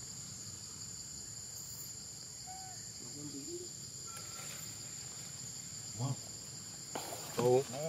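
Steady, high-pitched insect chorus in forest undergrowth. About six seconds in, and again louder near the end, a brief voice sounds, with a rustle just before the second one.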